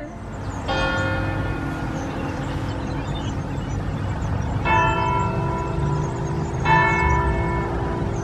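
Church bell struck three times, about a second in and then twice more about two seconds apart, each stroke ringing on. A steady low rumble sits underneath.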